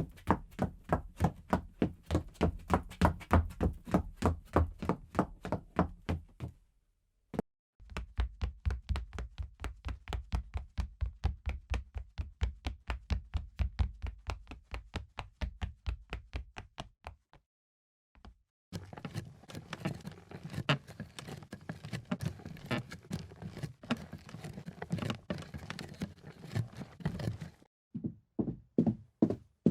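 Footsteps on a wooden floor, quick and even at about three to four steps a second. They come in several separate runs, each stopping for a second or two before the next begins; the third run has a busier, more cluttered sound.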